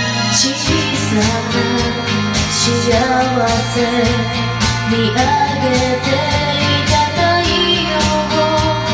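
Backing music of a Japanese pop song, karaoke version: steady accompaniment with a melody line that comes in about half a second in.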